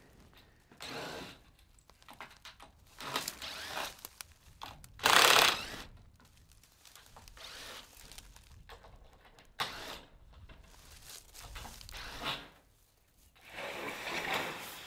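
Corrugated metal roofing panels being worked loose and pulled off a wooden chicken run: several short scraping, rattling bursts, the loudest about a third of the way in, with a sharp knock about two-thirds in.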